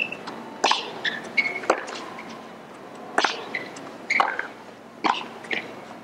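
Tennis rally on a hard court: sharp pops of racket strings striking the ball, about five of them roughly a second apart, with softer ball bounces and short shoe squeaks between.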